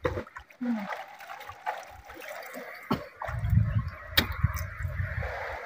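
Water lapping and trickling at the side of a small outrigger boat, with a few sharp clicks and a low rumble from about three seconds in.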